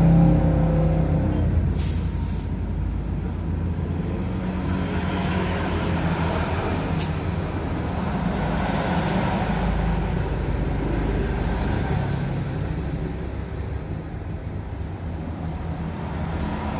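Steady low engine-and-workshop rumble, with a motor's tone dying away at the start. A short hiss of compressed air comes about two seconds in, like an air hose on a tyre, and a single sharp click around seven seconds.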